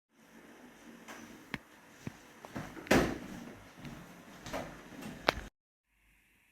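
A series of sharp knocks and clicks over a low background hiss, the loudest about three seconds in, cut off abruptly near the end.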